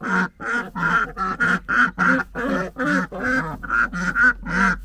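Indian runner ducks quacking in a quick run of short calls, about three or four a second, without pause.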